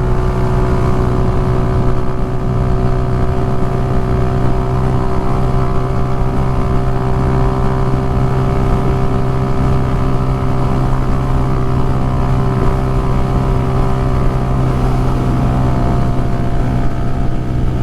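Motorcycle engine running at a steady cruising speed, a constant drone that holds one pitch throughout, with wind rushing over the microphone.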